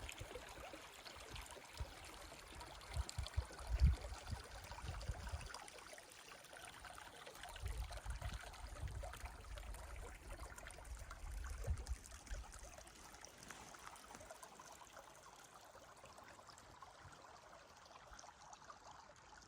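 Small creek trickling and running, a steady water sound, with a few low rumbles in the first twelve seconds.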